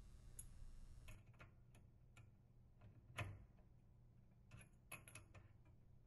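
Faint metal clicks and ticks as the water supply line's nut is threaded onto the dishwasher inlet valve's brass elbow fitting and a wrench is set on it. One louder click comes about three seconds in, and a quick cluster of clicks near five seconds.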